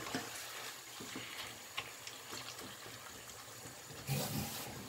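Ground-beef picadillo in tomato sauce simmering faintly in a nonstick frying pan and being stirred with a silicone spatula, with a louder stretch of stirring about four seconds in.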